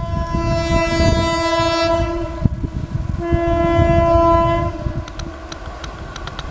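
An Indian Railways WAP-4 electric locomotive sounding its horn in two long blasts, the second shorter, as it approaches at speed hauling a passenger express. The train's low rumble runs under the horn. Sharp wheel clacks follow near the end.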